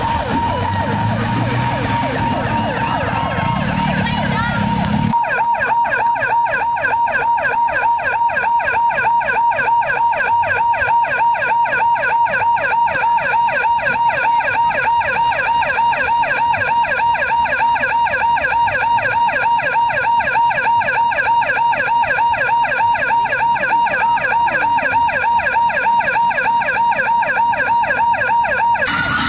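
Emergency siren sounding continuously in a rapid, evenly repeating warble of several pitch sweeps a second. For the first five seconds it has outdoor background noise under it; then the background drops away abruptly and only the siren remains.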